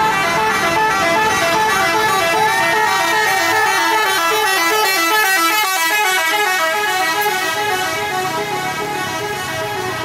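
Intercity bus's 'telolet' multi-tone musical air horn playing loudly and without a break: a fast, repeating run of stepped notes that jump up and down in pitch.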